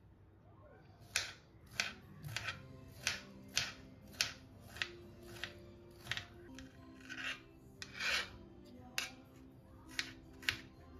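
A kitchen knife chopping cucumber into small dice on a plastic cutting board: crisp cuts knocking on the board about twice a second, starting about a second in.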